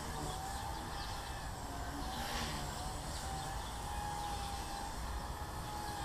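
Blade 130X micro RC helicopter's electric motor and rotor blades whining steadily in flight, the pitch wavering slightly, over a low rumble of wind on the microphone. A brief rush of noise comes a little over two seconds in.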